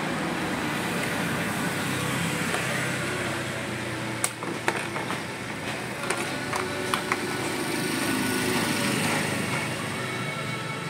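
Steady engine drone of a motor vehicle running nearby, swelling a little near the end, with a handful of sharp clicks in the middle from plastic clips and a screwdriver being worked on a car door trim panel.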